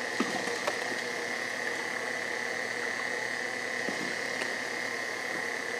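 KitchenAid Artisan stand mixer running steadily, its flat beater mixing batter in a steel bowl, with a steady motor whine and a couple of light clicks in the first second.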